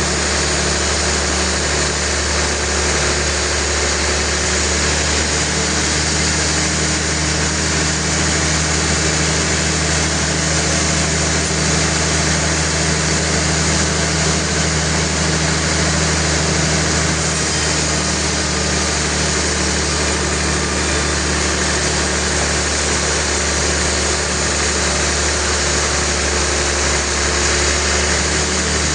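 Sawmill machinery running steadily: a constant low engine-like hum under a dense mechanical hiss, with no breaks or impacts.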